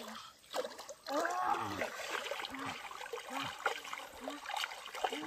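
Legs wading through knee-deep river water: sloshing splashes with a hollow gulping plunk at each stride, falling in pitch, about one a second.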